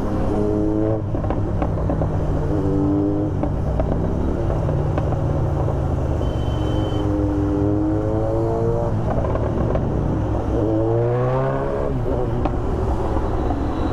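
Kawasaki Z900 inline-four with an Austin Racing aftermarket exhaust, running on the road and revving up several times, its pitch rising with each pull, over a steady engine drone and wind noise.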